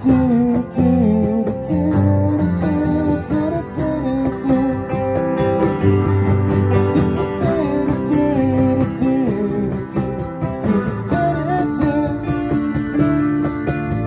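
Small live band playing a song on strummed acoustic guitar and electric guitar, with a melody line sliding and wavering between notes over the chords.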